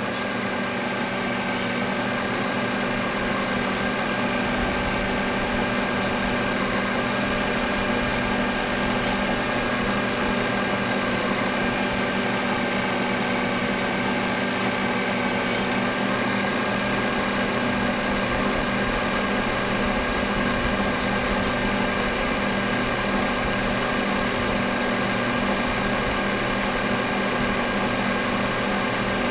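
Electric drive motor of a radio-controlled model boat running at an even speed, heard from the boat's onboard deck camera: a steady hum at a constant pitch under a hiss.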